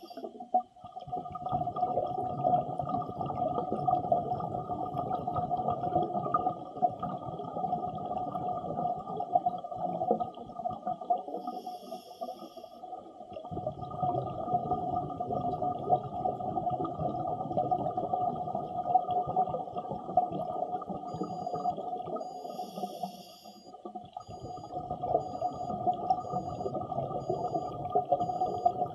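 Scuba diver breathing through an Apeks XTX-50 regulator, heard underwater: a steady rumble of exhaled bubbles, broken twice by a short hiss of the regulator as he inhales.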